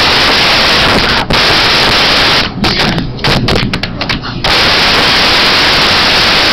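Loud, steady static hiss from the recording's audio line, cutting out abruptly for short moments about a second in and several times around the middle.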